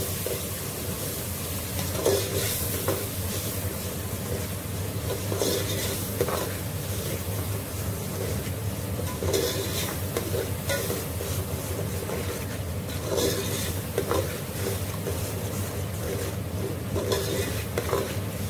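Metal spoon stirring and scraping through onion-tomato masala frying in oil in an aluminium pot, a scrape every second or two over a steady sizzle, with a steady low hum underneath.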